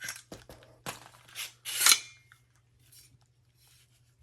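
AR-15 rifle being cleared and handled: a quick series of short metallic scrapes and clicks, about five in the first two seconds, the loudest near two seconds in, then faint handling.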